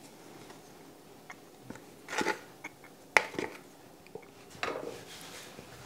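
Light knocks, clicks and scrapes of a plastic stand-mixer bowl being lifted, tipped upside down and handled as bread dough is turned out of it. The sharpest knock comes about three seconds in.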